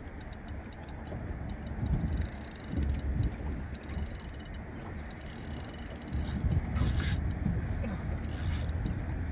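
Penn Authority 5500 spinning reel's drag ratcheting out line in several short bursts as a big catfish pulls against the bent rod, with a run of rapid clicks near the start.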